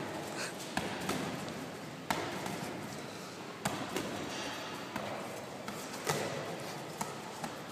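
A ball bouncing on a hard gym floor and being caught: several sharp thumps at uneven intervals of about a second.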